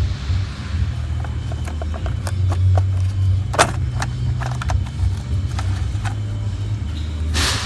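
Scattered sharp clicks and knocks of hands working plastic trim, connectors and tools, over a steady low hum.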